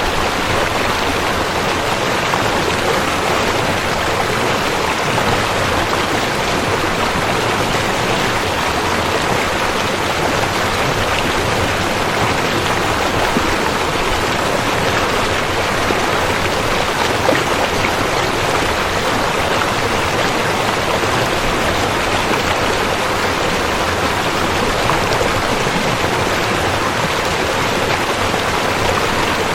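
River water flowing steadily, an even, unbroken wash of water noise.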